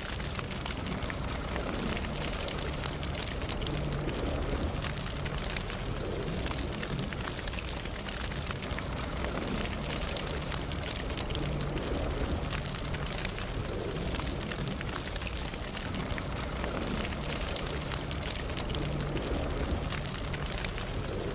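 Campfire burning, a steady low rush of flame with frequent small crackles and pops from the wood.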